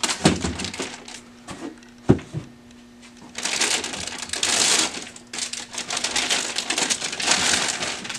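Crinkling and rustling of a silver foil bag being handled as a printer drum unit is pulled out of it, with a sharp knock about two seconds in.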